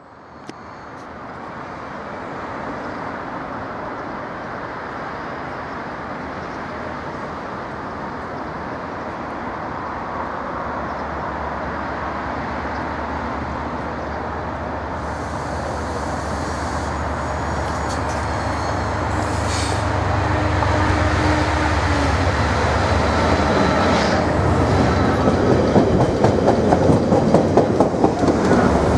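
Direct Rail Services Class 68 diesel locomotive heading a freight train, running toward the listener and growing steadily louder. The engine comes up in the last third, and wheel clatter sets in as the locomotive passes close by near the end.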